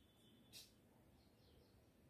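Near silence: room tone, with one short, faint high-pitched chirp about half a second in.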